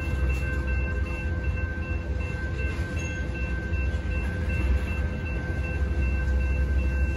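Freight train tank cars rolling past on steel rails: a steady, deep wheel-and-rail rumble with a thin, steady high ringing tone over it.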